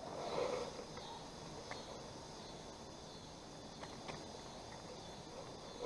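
Faint steady insect chorus, with a few light clicks partway through.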